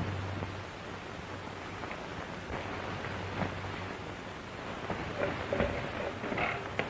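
Steady hiss and crackle of an old 1930s optical film soundtrack, with a low hum in the first few seconds and a few faint ticks.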